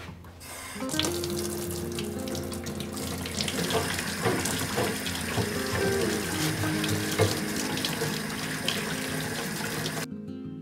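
Tap water running into a utility sink and splashing over a bike frame as it is scrubbed with a brush, with many small clicks and knocks, until it cuts off abruptly just before the end. Guitar music plays underneath.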